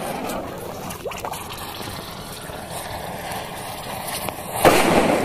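Lit fuse of two taped-together firecrackers fizzing and crackling, sputtering as it burns in a bowl of water. About four and a half seconds in, a sudden louder rush of noise breaks out.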